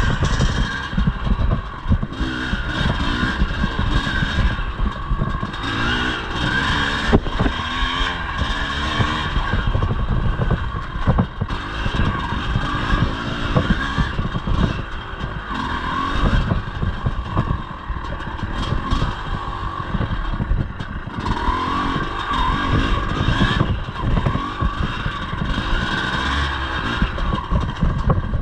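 Two-stroke single-cylinder engine of a 1983 Yamaha IT250 enduro motorcycle revving up and down as it is ridden over rough trail, with frequent knocks and clatter throughout.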